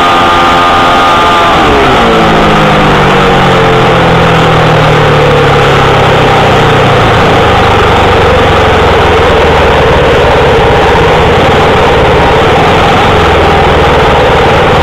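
Grasstrack sidecar outfit's engine heard onboard: held at high revs for about a second and a half, then the revs fall away over several seconds and settle to a low, steady run as the outfit rolls on. A constant rush of wind and track noise sits under it.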